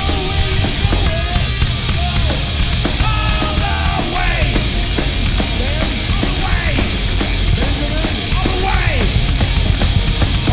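Live heavy metal band playing: a male singer's voice over distorted electric guitar, drums and cymbals.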